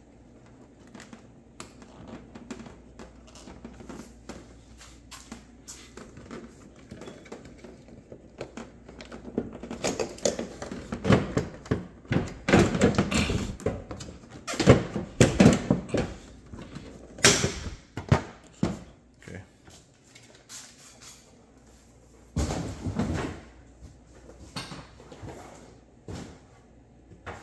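A 2015 Ford Fiesta headlight assembly is worked loose and pulled out by hand: irregular clicks, knocks and scraping. It starts with faint scattered clicks, grows louder and busier about a third of the way in, and ends with one more burst near the end.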